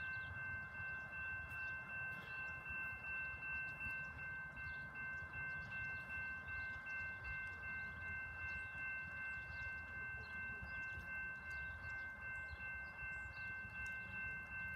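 Railroad crossing warning bell ringing steadily, about two rings a second, over a low wind rumble: the signal for an approaching train.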